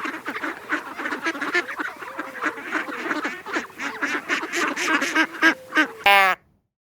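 A flock of domestic waterfowl calling, many short honks and quacks overlapping, with one louder, longer call near the end.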